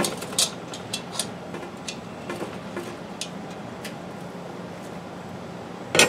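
Scattered light clicks and knocks as a cast iron Dutch oven is handled and lifted by its wire bail handle off hot charcoal briquettes, with a louder knock near the end.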